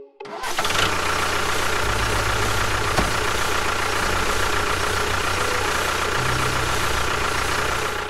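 Tractor engine running steadily, coming in abruptly just after the start and dropping away at the end, with a low hum that steps up and down in level a few times.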